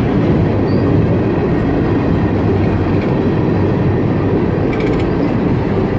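Freight cars of a mixed freight train rolling past at close range: a steady, loud rumble and clatter of steel wheels on the rails.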